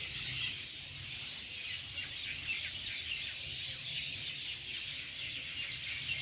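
Dense chorus of many small birds chirping, with a steady low hum underneath.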